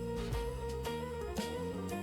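Background music: a guitar-led instrumental over a bass line, with a steady beat about twice a second.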